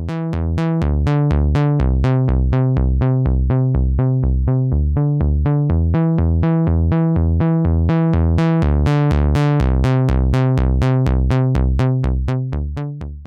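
Behringer Model D analog synthesizer playing a repeating bass sequence of short plucked notes, about four a second, each note starting bright and quickly dulling. It fades out near the end.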